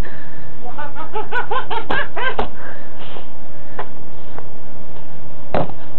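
A person laughing in a run of short rising-and-falling "ha" sounds for about a second and a half, with two sharp knocks near the end of the laughter.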